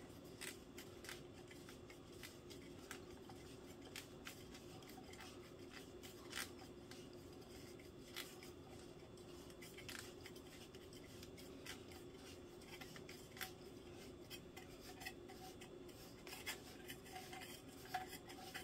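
Faint, irregular clicks and rubbing of a plastic toy dough extruder being twisted and handled, pushing modelling dough up its shaft, over a steady low hum.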